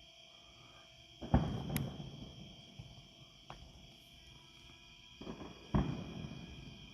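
Fireworks booming in the distance: one loud burst about a second in, and two more close together near the end, each trailing off with a rumble, plus a few fainter cracks between them. A steady chorus of crickets chirring runs underneath.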